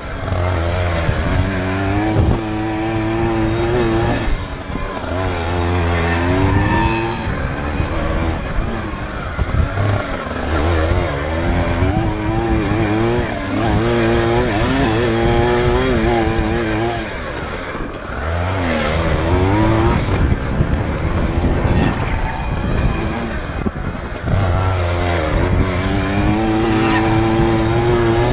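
Dirt bike engine revving hard and easing off over and over, its pitch climbing and dropping as the bike rides a motocross track.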